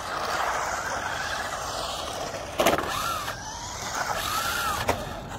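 Small electric RC cars (SG1603/SG1604 1/16-scale, stock, on road tyres) running on asphalt: a steady rush of motor and tyre noise, with the motor whine briefly rising and falling twice in the second half. Two sharp knocks stand out, the louder about two and a half seconds in and another near the end.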